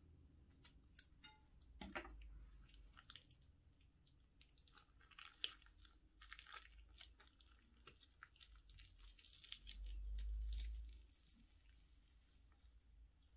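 Faint crinkling of a plastic piping bag and sticky squishing and crackling of clear slime with beads as it is snipped open with scissors and squeezed out, in a run of small clicks. A low dull rumble lasts about a second near the end.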